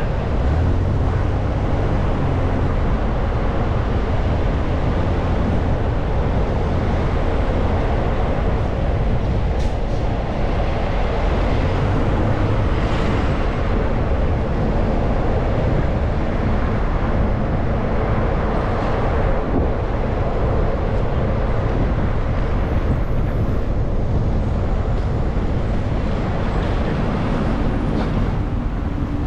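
Car driving along: a steady low rumble of engine and tyre noise.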